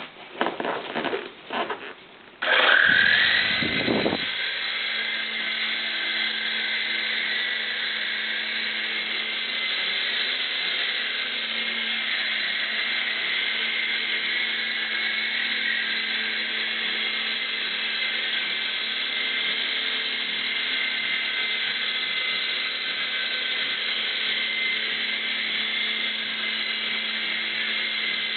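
Electric motors of a three-channel RC helicopter spinning up about two seconds in, after a few light knocks, rising briefly in pitch and then running with a steady high whine as it flies.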